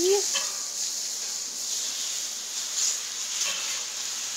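Sliced chicken breast sizzling steadily on a hot steel flat-top griddle (Pit Boss gas griddle). A few brief scrapes of a metal spatula turning the strips stand out from the hiss.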